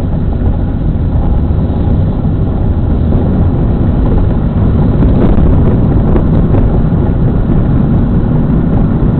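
Steady low rumble of a car driving on a city road, heard from inside the car: road and engine noise.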